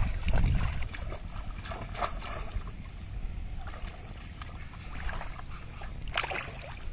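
Shallow water splashing and sloshing as feet wade through a flooded rice paddy, loudest in the first second, with a sharper splash near the end.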